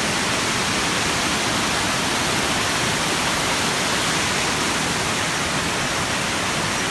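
Fast mountain river water rushing in a strong current, a loud, steady, even roar of running water.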